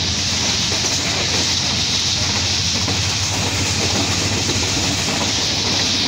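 Express passenger train running fast, heard from an open coach window: a steady rumble of the wheels on the rails under a loud rush of wind.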